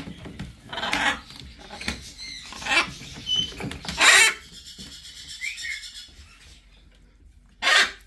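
Several short rasping scrapes and rustles, the loudest about four seconds in and another near the end, from the baby macaws being handled and moved into a container. A few faint short squeaks come in the middle.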